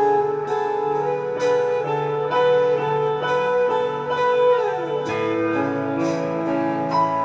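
A band playing an acoustic arrangement: picked guitar notes ringing over sustained chords, with the harmony shifting to lower notes about five seconds in.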